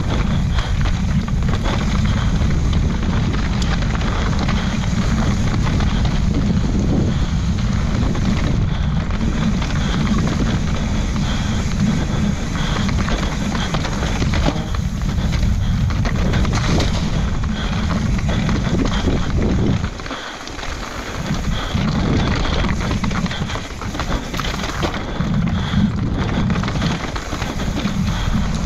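Wind buffeting the microphone during a fast mountain-bike descent, over a steady rush and rattle of tyres and bike on a dirt trail. It eases briefly about twenty seconds in.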